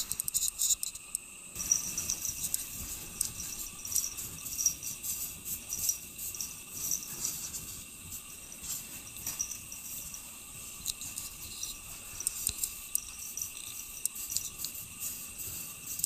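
A cat pawing and scratching at a wall of packed snow: irregular light crunching scratches over a faint, steady, high-pitched hum.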